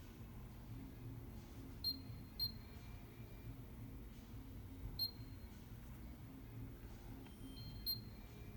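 Four short high beeps at irregular intervals from the Miele professional washing machine's control panel as its keys are pressed, over a low steady hum.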